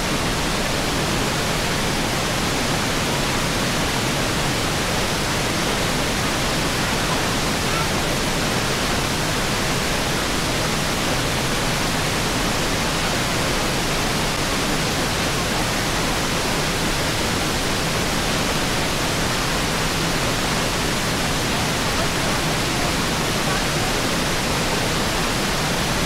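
High Shoals Falls on Jacob Fork: the steady rush of a waterfall pouring over rock into a pool, as an even, unbroken roar of falling water.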